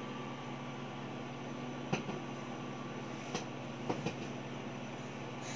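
Sharp microwave oven running with a steady hum while popcorn kernels in a paper bag pop inside it: about five sharp pops, sparse and spread out, starting about two seconds in.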